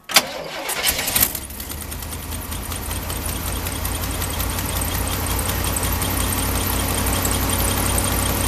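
Cold truck engine cranked and catching within about a second, after a few sharp clicks, then settling into a steady idle. The fast idle is typical of a cold engine. It runs on a freshly repaired spark plug wire.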